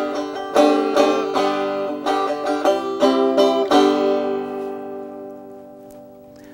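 Mountain banjo with a wood rim and small drum head, strummed: a quick run of about a dozen chord strokes, then a last chord about four seconds in that rings on and slowly fades.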